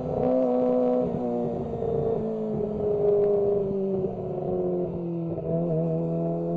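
Kawasaki ZX-25R's 249 cc inline-four engine running under way, heard from onboard. Its pitch steps down twice in the first second and a half, then falls slowly for a few seconds, and wavers before settling higher near the end.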